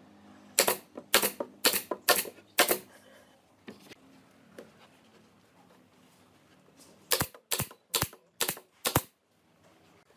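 Pneumatic nail gun firing nails into pallet-wood boards. A run of five sharp shots about half a second apart, then after a pause of about four seconds another run of five.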